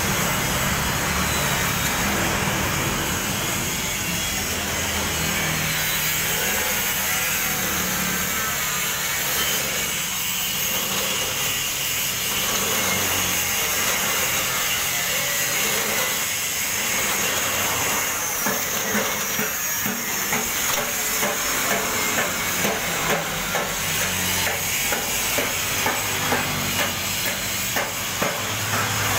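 Belt-driven tempe and cracker slicing machine running, its flywheel and blade turning with a steady hum as it cuts thin slices. From about halfway on, sharp clacks come at a regular pace of about one or two a second.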